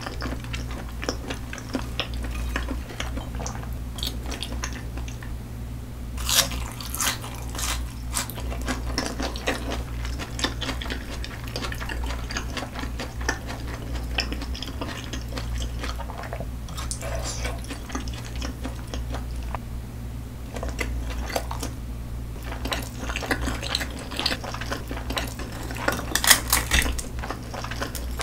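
Close-miked eating sounds: chewing salmon and sushi, with chopsticks clicking against plates and a sauce cup. The loudest clicks come about six seconds in and near the end, over a steady low hum.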